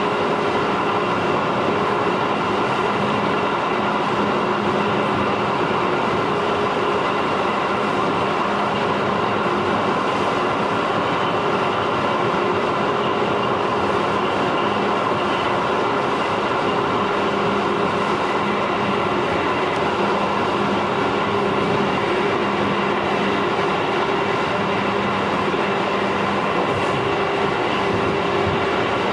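JR 211 series electric train running at a steady speed, heard from inside the passenger car: an even rumble of wheels on rail with a steady hum that holds one pitch throughout.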